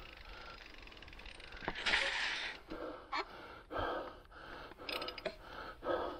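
A person breathing hard with a steady rhythm of breaths about once a second. A longer, higher hiss of breath comes about two seconds in.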